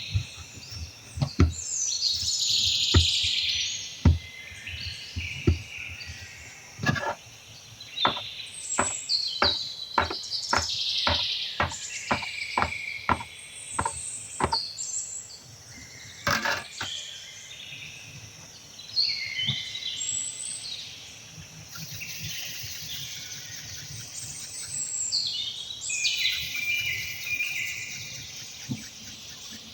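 Small birds chirping and twittering throughout, with a series of sharp knocks in the first half, coming about two a second for several seconds.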